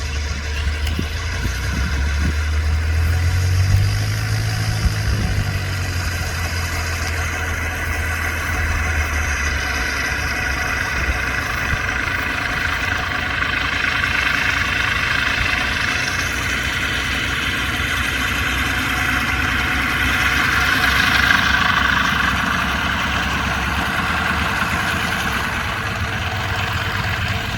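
Rotec R2800 seven-cylinder radial engine running, with a brief rise and fall in revs a few seconds in and a swell in loudness about two-thirds of the way through.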